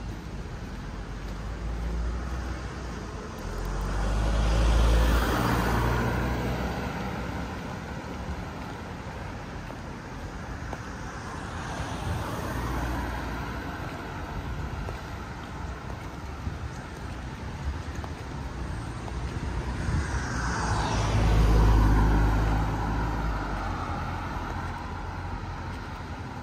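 Cars driving past on the street alongside: two loud close pass-bys, swelling and fading, about five seconds in and again about twenty-one seconds in, a quieter one around twelve seconds, and steady traffic noise between.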